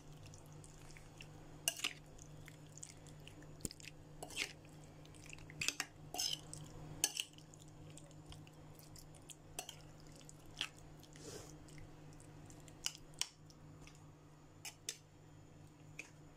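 Metal spoon stirring raw chicken pieces in marinade in a ceramic bowl: wet squishing with irregular clicks of the spoon against the bowl, over a faint steady low hum.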